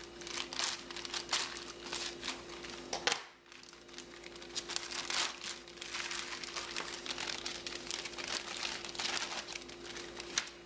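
Clear plastic packaging bags crinkling irregularly as hands handle the plastic drone frames inside them and pull them out, with a short lull about three seconds in. A steady faint hum runs underneath.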